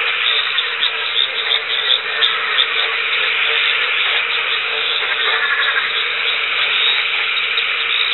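Loud, dense chorus of many frogs calling at once from a rainforest pond, the breeding chorus set off by the first wet-season rains. A steady low note runs under a thick mass of rapid higher calls.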